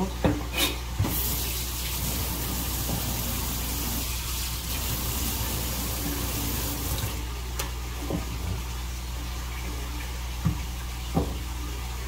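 Water running from a tap for about six seconds and then shut off, as a freshly shucked scallop is rinsed; a few light knocks follow near the end.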